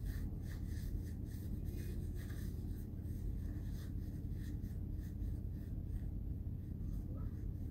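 Steady low hum with faint, irregular scratchy rustling over it.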